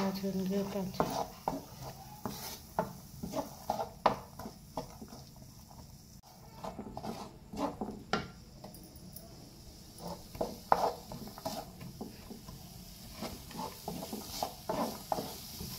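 Wooden spatula stirring and scraping chopped onion and green chilli around a frying pan, with irregular knocks against the pan, over a light sizzle of the onions sautéing in oil and butter.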